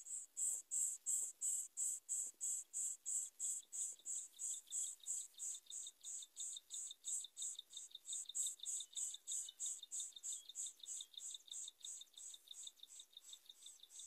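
Insects chirping: a high-pitched chirp repeating evenly about three times a second, joined a few seconds in by a second, lower and faster trill; the first chirp fades near the end.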